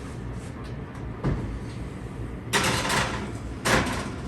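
Kitchen handling sounds: a knock about a second in, then two short scraping rushes, the first about two and a half seconds in, the second near the end, of the kind a door or oven rack makes when moved.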